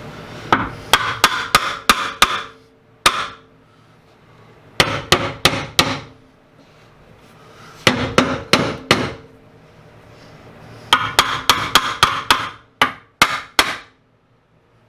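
Hammer blows in quick bursts of several strikes each, about five bursts with short pauses between them, used to persuade a tight-fitting part into place.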